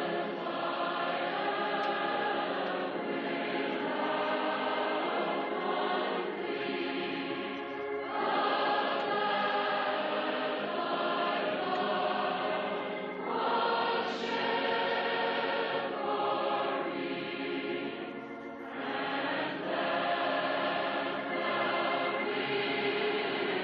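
A choir singing a slow hymn in long sustained phrases, with short breaks between the lines.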